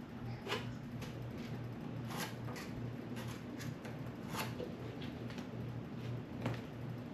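Scattered light clicks and taps from things being handled, about seven of them spread unevenly, over a steady low hum.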